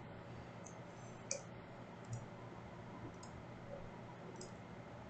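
A few faint computer mouse clicks spaced about a second apart over a low room hum; the clearest click comes just over a second in.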